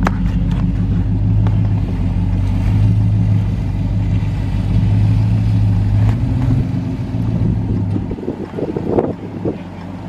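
Pickup truck engine pulling steadily under load in four-wheel-drive low while towing a stuck truck out of the mud, heard from inside the cab. It eases off about eight seconds in, with a few crackling knocks near the end.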